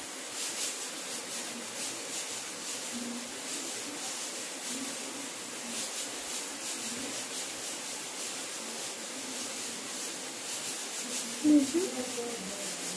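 Faint rustling and rubbing of cotton crochet thread and fingers as a hook works stitches, over a steady hiss. A brief louder sound about a second and a half before the end.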